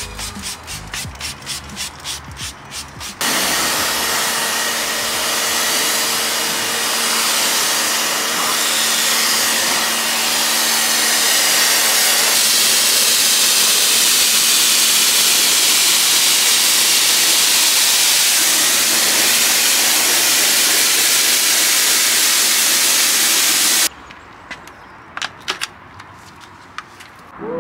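A trigger spray bottle spritzing in quick repeated squirts, then from about three seconds in the loud steady hiss of a pressure-washer jet rinsing car bodywork, with the washer's motor humming beneath. The hiss stops abruptly near the end, followed by a few sharp clicks as a snow foam lance is fitted to the pressure-washer gun.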